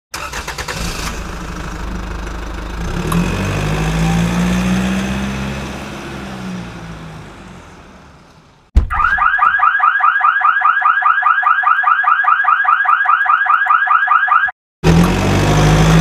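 A vehicle engine sound with a slowly rising and falling hum fades out over the first eight or nine seconds. It cuts suddenly to a loud electronic alarm warble repeating about seven times a second for roughly six seconds, which stops abruptly. The engine hum then starts again near the end.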